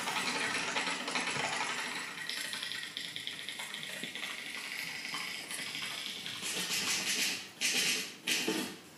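Mechanical typewriter clattering in a fast run of small clicks, with louder swelling bursts near the end.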